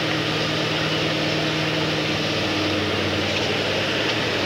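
An engine running steadily, with a low drone over a constant hiss. The drone's pitch pattern shifts about three seconds in.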